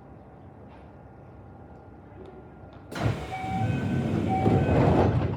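Train's sliding passenger doors closing: about three seconds in, a sudden loud rush of door movement starts, with two short beeps of the door-closing chime over it.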